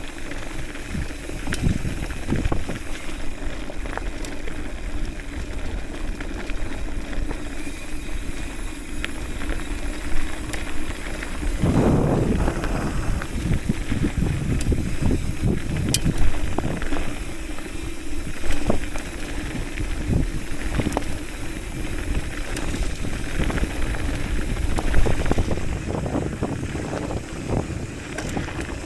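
Haro Saguaro hardtail mountain bike ridden fast on a dirt trail: a continuous rumble of tyres on dirt with many small clicks and knocks of the bike rattling over bumps, rougher about twelve seconds in.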